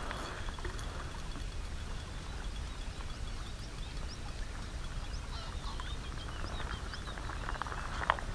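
Wind rumbling on the microphone, with a hooked asp briefly splashing in the shallows at the very start. Small birds chirp in quick short calls from the middle until near the end.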